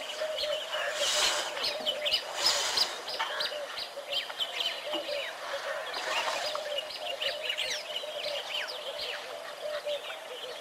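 Outdoor bird chorus: many short chirps and quick whistled calls overlapping, with a steady, evenly repeated lower call running underneath and a few brief rushes of noise.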